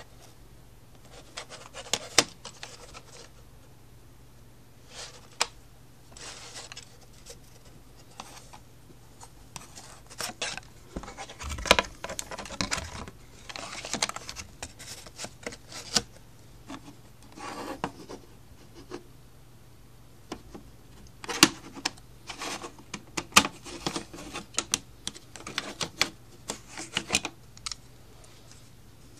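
Plastic compact cassettes and their clear plastic cases handled by hand over a cardboard box: irregular clicks, clacks and rubbing, in scattered clusters throughout.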